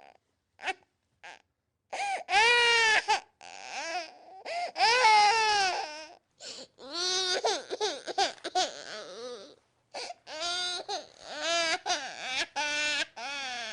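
Infant crying in a run of wails, each rising and falling in pitch and broken by short gasps for breath, the loudest about two and five seconds in.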